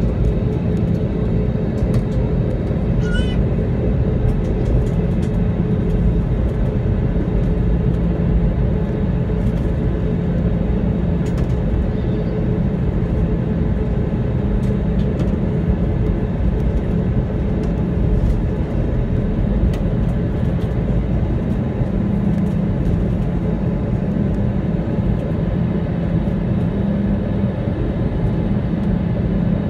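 Airbus A320 taxiing after landing, heard from inside the cabin: a steady engine drone with a low, even hum.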